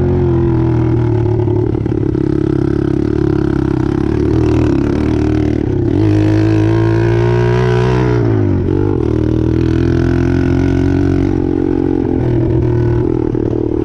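Apollo 125cc dirt bike's single-cylinder four-stroke engine running under way. Its revs climb about six seconds in, then drop back quickly about two seconds later.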